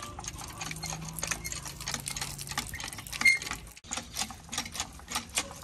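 Hand pump being worked by its lever: a quick, fairly regular run of clicks and clacks from the pump mechanism.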